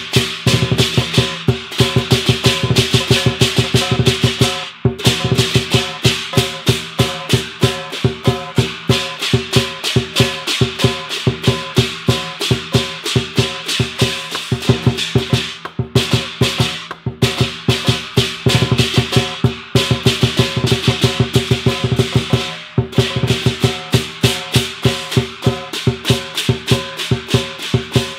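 Hok San lion dance percussion ensemble playing: a large lion dance drum beaten in fast, dense patterns while a gong rings and several pairs of hand cymbals clash in time. The rhythm breaks off briefly a few times and picks straight back up.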